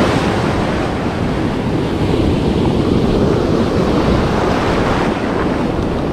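Ocean surf breaking and foamy water rushing up the beach, a steady wash of noise, with wind rumbling on the microphone.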